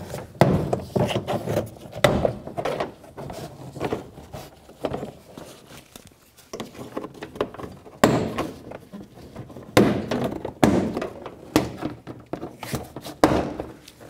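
Plastic push pins of a GMC Sierra door trim panel popping free as a trim tool pries the panel off the door: a series of irregular sharp pops and thunks, the loudest about eight and ten seconds in.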